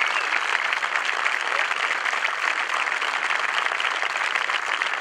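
Crowd applauding: many hands clapping at once, a dense, steady clatter.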